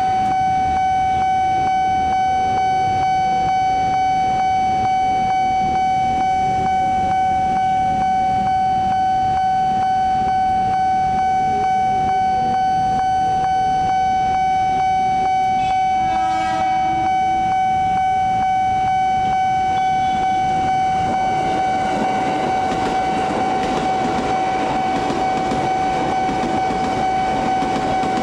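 Level-crossing warning signal sounding one steady, high electronic tone over street traffic. A brief horn sounds about 16 seconds in. From about 21 seconds the rumble of an approaching KRL electric commuter train grows louder, and the train passes near the end.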